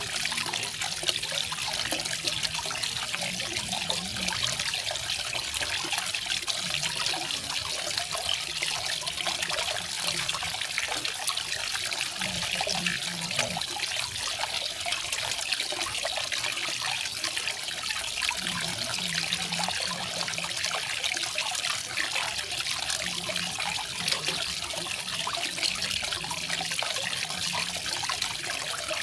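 Small garden waterfall: water falling and splashing in a steady, unbroken rush with a trickling edge.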